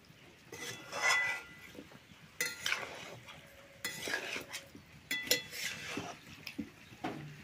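A metal utensil scraping and clinking against a metal cooking pot in irregular strokes, some of them leaving a short metallic ring.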